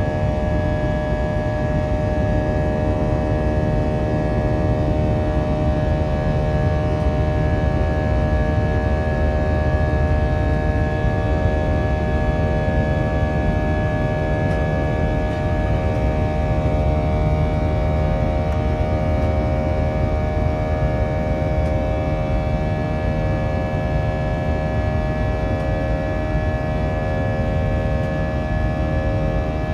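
Airbus A319's IAE V2500 turbofan engines at takeoff-climb thrust, heard from the cabin beside the wing: a steady roar carrying a chord of many held tones, the multi-tone 'engine symphony' of the IAE engine.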